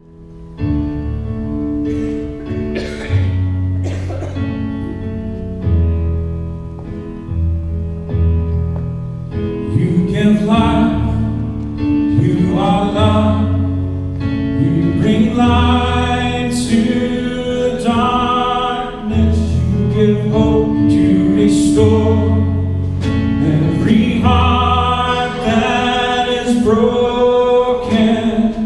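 Live worship band playing a slow song in the key of A: acoustic and electric guitars, keyboard and sustained bass notes in an instrumental intro, with a male lead vocal coming in about ten seconds in and singing the first verse over the band.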